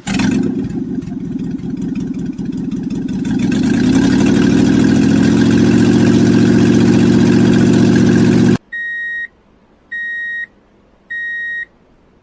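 A truck engine starts and runs, rising in pitch and holding steady at higher revs, then cuts off abruptly. Three evenly spaced high-pitched beeps follow, like a vehicle's reversing alarm.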